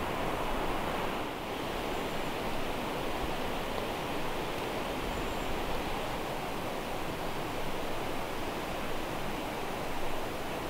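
A steady, even rushing outdoor noise with no distinct events, of the kind made by wind in a forest canopy or flowing water.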